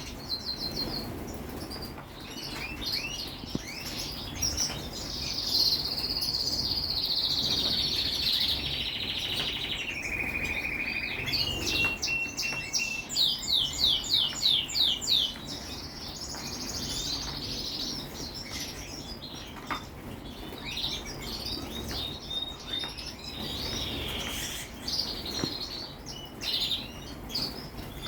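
Several small songbirds chirping and singing at once: short chirps and trills throughout, a long warbled phrase that falls in pitch, and a quick run of repeated notes about halfway through.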